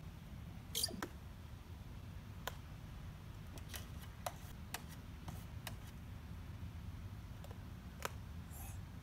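Common raven making short, sharp clicking sounds, about ten at irregular intervals, the loudest about a second in, over a low steady rumble.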